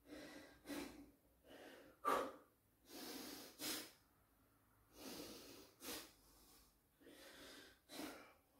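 A man breathing hard and out of breath while holding a forearm plank in a high-intensity interval workout: a breath every second or so, with several sharp, forceful exhales standing out.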